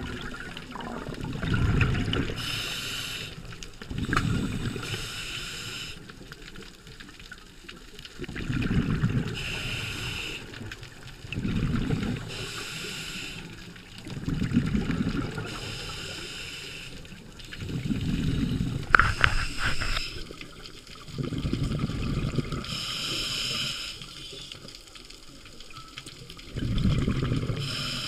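A scuba diver breathing through a regulator, heard underwater. Exhaled bubbles rumble and gurgle, and each is followed by the hiss of an inhale, in a cycle that repeats every few seconds. A few sharp clicks come about two-thirds of the way through.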